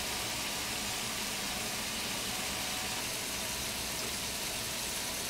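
Thick ground-beef burger patties frying on a hot electric griddle plate: a steady sizzle of fat bubbling and spitting around them.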